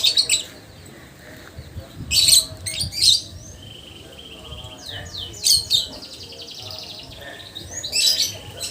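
Lovebird chattering: harsh, shrill screeches come a few times, at the start, about two and three seconds in, about five and a half seconds in and near the end. Between them run fast, repeated high chirping notes, the lovebird's 'ngekek' song.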